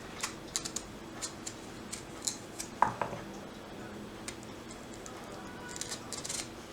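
Kitchen utensils lightly clicking and tapping during food preparation, with one louder clink about three seconds in that rings briefly.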